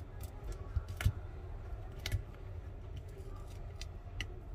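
Thin plastic pry tool worked around the edge of an iPhone 13 Pro to lift the screen off its adhesive: a few scattered sharp clicks and ticks, the loudest about a second in, over a low steady rumble.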